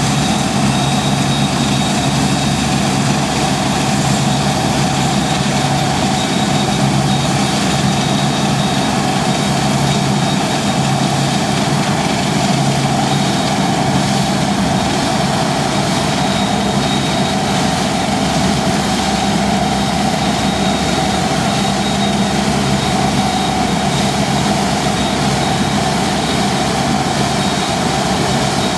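Deutz-Fahr 6095 HTS combine harvester running steadily: a constant engine drone under a dense mechanical rush, with a thin high whine on top.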